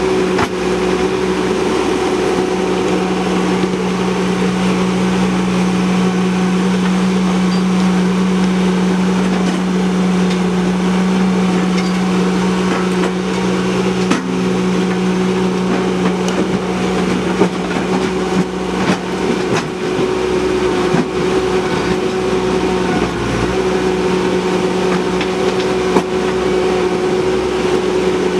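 Ditch Witch SK900 mini skid steer's engine running steadily under load as it digs, with a few sharp knocks over the engine noise.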